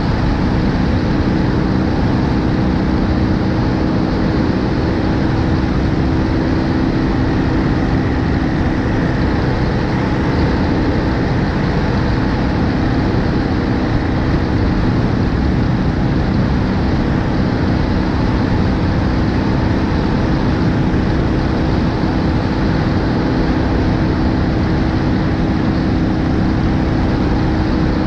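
BMW R1250GS Adventure's boxer-twin engine running steadily at cruise, mixed with wind and road noise, heard from a GoPro mounted on the front of the motorcycle.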